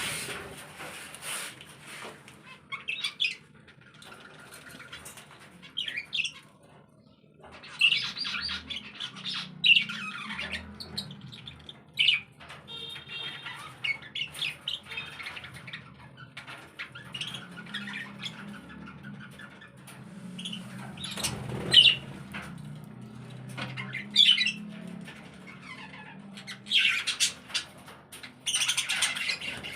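A group of caged pet birds, budgies and other small parrots, calling in many short squawks and chirps, some louder and sharper than others, over a faint low hum.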